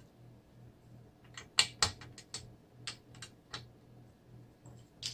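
Small plastic LEGO pieces clicking and clattering as they are picked from a loose pile and handled. The clicks come irregularly, the loudest pair about one and a half to two seconds in.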